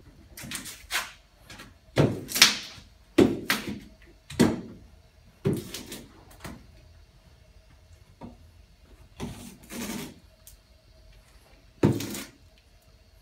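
A run of irregular knocks and thumps, about eight, each with a short ringing tail, the loudest in the first half, over a faint steady hum.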